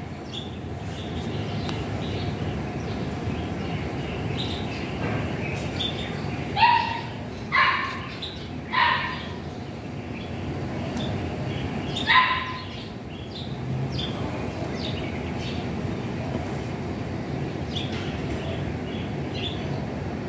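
Four short, loud, pitched animal calls: three in quick succession about six and a half to nine seconds in, and a fourth about twelve seconds in. Faint high bird chirps run underneath over a steady background hum.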